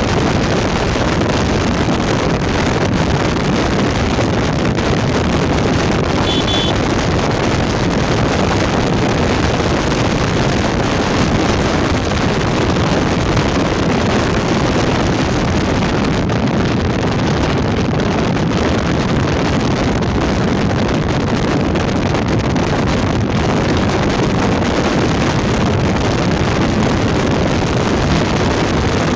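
Steady rush of wind over the microphone mixed with the running and road noise of a Yamaha motorcycle being ridden at a constant pace.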